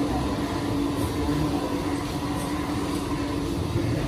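Steady hum and rumble of running machinery, holding constant with no breaks.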